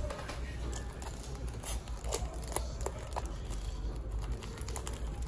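Small scissors snipping through plastic wrapping, a run of irregular short snips with the plastic crinkling as it is cut and handled.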